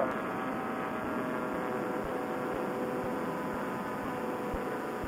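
Vittorazi Moster two-stroke paramotor engine and propeller running at a steady cruise in flight, heard as an even drone with a constant hum.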